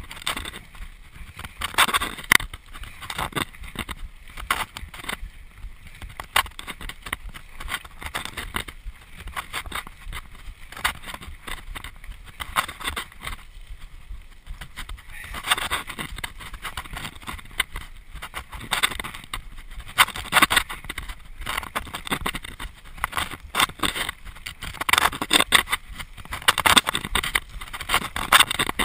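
Mountain bike ridden fast down a rough dirt singletrack: tyres rolling on the dirt over a steady rushing noise, with the bike rattling and many sharp knocks as it hits bumps.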